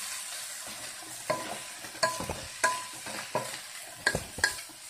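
Wooden spatula stirring clam meat through frying onion and spice masala in a nonstick kadai, with a low sizzle and sharp taps and scrapes of the spatula on the pan every half second or so.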